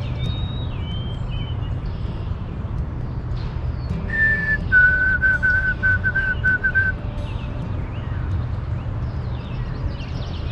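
White-throated sparrow singing its whistled song: one clear held note, then a slightly lower note repeated quickly about nine times. Fainter high chirps of other small birds and a steady low rumble sit underneath.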